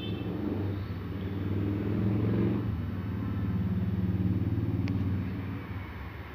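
Engine of a slow-moving road vehicle running, picking up speed around two seconds in and again around four seconds in, then easing off near the end.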